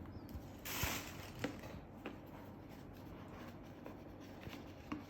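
Gift wrapping paper rustling briefly about a second in, with a few light clicks and taps from handling the wrapped package.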